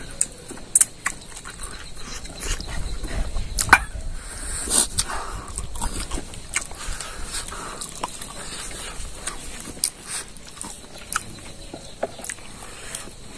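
A person eating with their hands: chewing and lip smacking, a run of short wet clicks, with the loudest few in the first several seconds.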